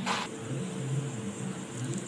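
Steady low hum, with a brief hiss at the very start.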